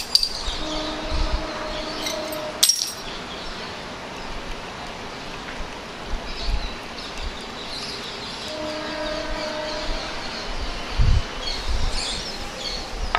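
A train horn sounds twice, each time one steady held note lasting under two seconds: once near the start and again about eight and a half seconds in, over a low rumble. A sharp click comes about three seconds in.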